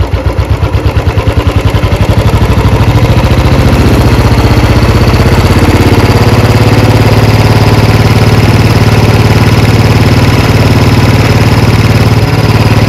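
Royal Enfield Bullet 350 single-cylinder engine idling as the carburettor idle screw is turned in: its slow, separate beats quicken over the first few seconds, then settle into a steady fast idle around 2000 rpm.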